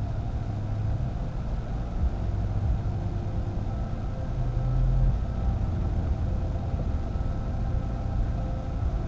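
A car driving: a steady low rumble of engine and tyres with no sudden changes.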